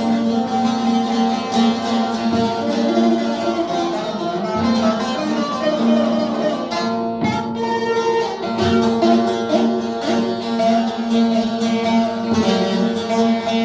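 Instrumental music led by a plucked string instrument, a steady run of picked notes.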